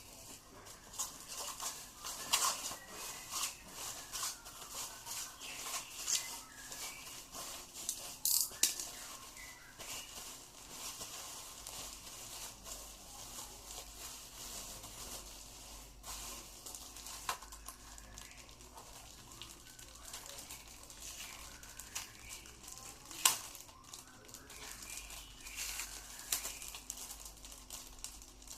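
Packaging being handled and opened: plastic crinkling and rustling, with scattered sharp clicks and taps.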